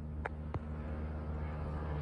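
Engine of a 150-class single-cylinder racing scooter approaching from far down the road at full throttle, a steady drone growing slowly louder. Two brief sharp clicks about a quarter and half a second in.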